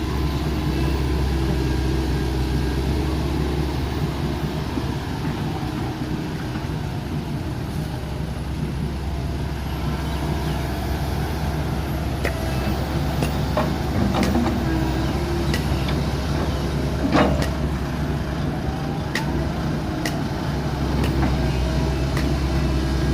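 Komatsu tracked excavator's diesel engine running steadily, with scattered sharp clicks and knocks from about halfway through and one louder knock about three-quarters of the way in.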